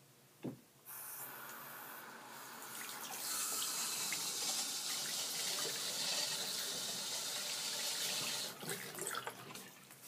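Bathroom sink tap running into the basin, wetting a washcloth. After a short knock, the water comes on just before a second in, runs harder from about three seconds, and is shut off near the end.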